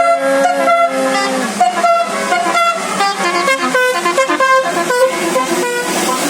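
Basuri telolet bus horn playing a melody: one long held note, then a run of shorter notes stepping up and down in pitch, a few notes per second.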